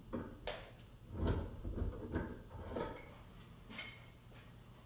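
Scattered light clicks and knocks, about seven of them, from hand tools and metal shotgun parts being handled during a teardown.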